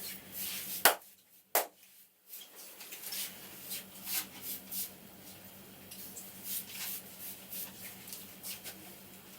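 Barber's hands rubbing and tapping on a head during a massage, with short rustles and taps throughout and two sharp cracks, the first a little under a second in and the second about half a second later.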